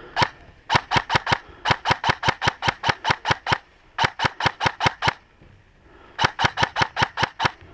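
Airsoft electric rifle firing a single shot, then four bursts of rapid clicking shots at about eight a second, with short pauses between bursts.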